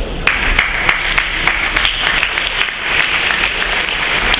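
Audience applauding, coming in suddenly about a quarter of a second in, with single sharp claps standing out from the steady clapping.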